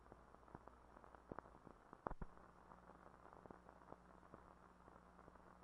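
Near silence: faint hiss and a low steady hum, with scattered small clicks and a slightly louder pair of clicks about two seconds in.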